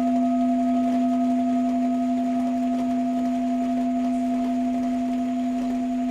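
Tibetan singing bowl ringing steadily: a strong low hum with a clear higher overtone, and a faint third, higher tone that fades out about two seconds in. A faint hiss of rain sits underneath.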